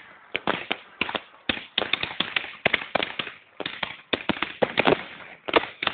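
Fireworks going off in an irregular stream of sharp bangs and crackles, densest about four to five seconds in, picked up through a Nokia 6700 phone's microphone, which cuts off the top.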